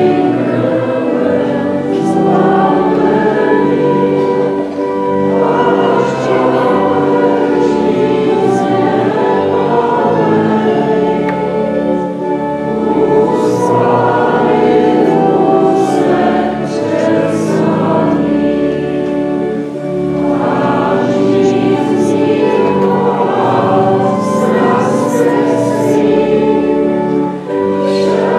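Many voices singing a church hymn together, in long held notes that change every second or two.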